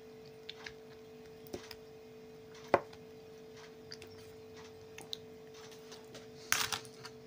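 Eating sounds: a metal fork tapping and scraping in a plastic tub of beet salad, with chewing, as scattered short clicks, the sharpest about three seconds in and a noisier cluster near the end. A faint steady hum lies underneath.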